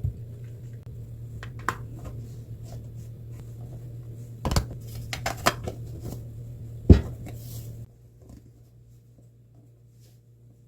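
Dishes and cutlery clinking and knocking together in a few separate strikes, the loudest about seven seconds in, over a steady low hum that cuts off about eight seconds in.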